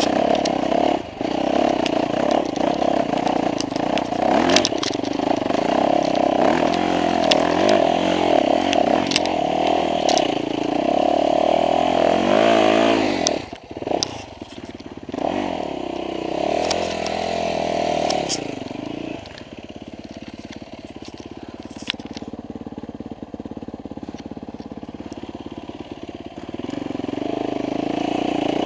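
Off-road dirt bike engine running on a muddy trail, revving up and easing off in turn. About halfway through it drops away almost completely, then runs lower and steadier for several seconds before revving up again near the end. Scattered sharp clicks and knocks sound over it.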